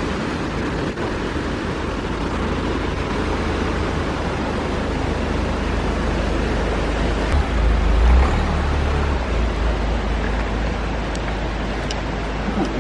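Vehicle on the move: steady low engine and road rumble under a rushing hiss, with a brief louder rumble a little past the middle.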